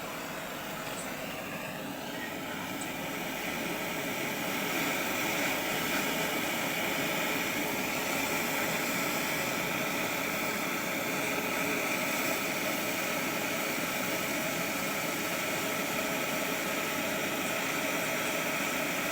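A steady hissing rush that grows a little louder over the first few seconds and then holds even.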